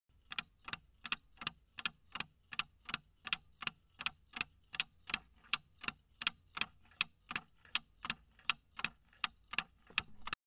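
Clock-tick sound effect of a quiz countdown timer: steady, evenly spaced ticks, nearly three a second, marking the time left to answer.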